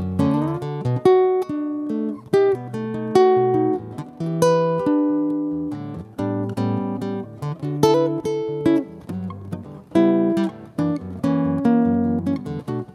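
Solo nylon-string guitar with a skeleton-frame body, fingerpicked: a melody of single notes and chords that opens a samba.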